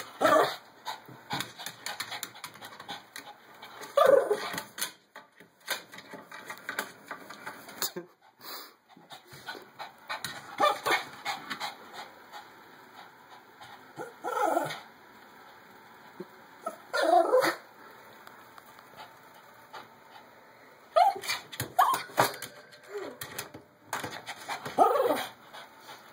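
Small Shih Tzu whining and giving short yips, a brief call every few seconds.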